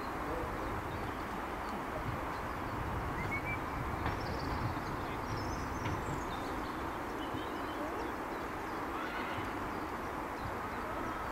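Steady outdoor wind rumble on the microphone, with faint high chirps now and then.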